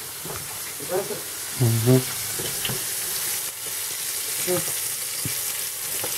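Small tugun whitefish sizzling in hot oil in a frying pan: a steady hiss.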